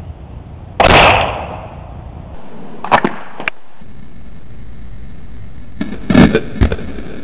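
A MAPP-gas combustion spud gun fires with one loud bang about a second in, dying away over about a second. Near the end a quick cluster of sharp bangs and thuds as a potato strikes a pumpkin and knocks it off its stand.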